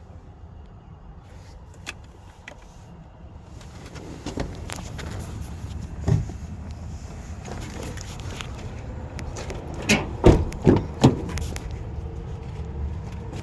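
Clunks and knocks of a car's body and interior being handled, over a low steady rumble. The loudest are three quick knocks about ten seconds in.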